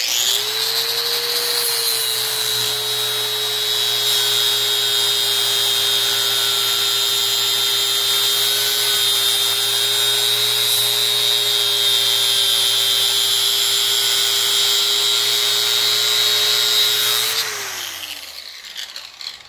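Angle grinder fitted with a flap disc, switched on and grinding the edge of a steel lawn mower blade to sharpen it, with a steady high whine. About seventeen seconds in it is switched off and winds down, its pitch falling.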